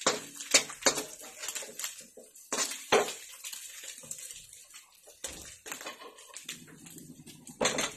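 Spatula knocking and scraping against a wok while stirring scrambled egg, with several sharp clacks in the first three seconds and one more just before the end.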